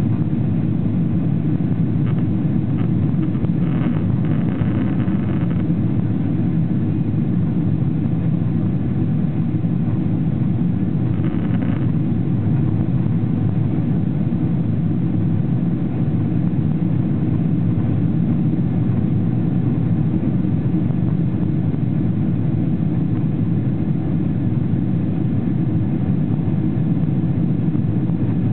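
Steady cabin noise inside a Boeing 777-300ER in flight after takeoff: its GE90-115B turbofans and the airflow over the fuselage make an even, low-pitched rumble heard through the cabin wall by the wing.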